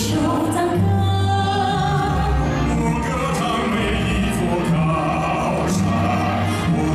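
Live stage music with singing: a song sung over a full instrumental accompaniment, heard through a large hall's sound system.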